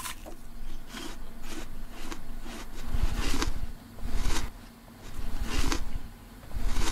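A person chewing crisp, crunchy food close to the microphone, with a crunch about twice a second and a few heavier bites among them.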